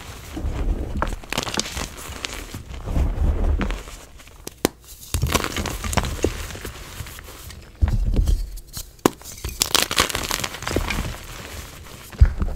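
Hands crushing and squeezing blocks of gym chalk into loose chalk powder: irregular soft crunching and crumbling, with a few sharp snaps as pieces break.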